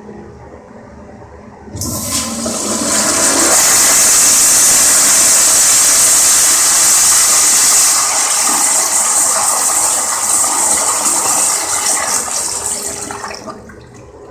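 Crane Economiser toilet flushed by its flushometer valve: a loud hissing rush of water starts suddenly about two seconds in, holds steady for about eleven seconds, then dies away near the end.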